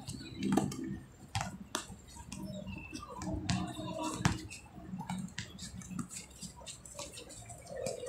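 Basketball bouncing on an outdoor hard court: irregular sharp knocks a second or so apart, with faint voices of players in the background.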